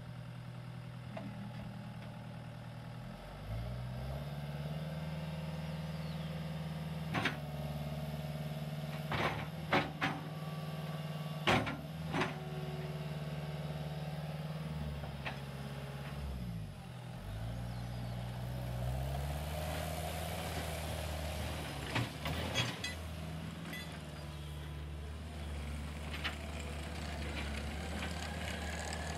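Cat 259B3 compact track loader's diesel engine running, rising to higher revs about three seconds in, dipping briefly about halfway through and then coming back up as the machine works its bucket and drives. A few sharp clunks sound over the engine, in a cluster a few seconds in and again later on.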